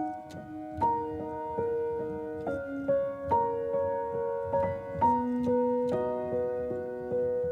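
Gentle piano music: slow, ringing notes and chords struck roughly every half second to second, coming in suddenly right at the start after a quiet stretch.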